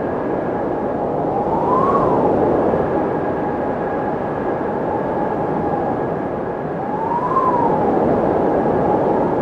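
Windmill turning: a steady whooshing drone with a humming tone that rises and falls twice, about five seconds apart, swelling a little in loudness each time.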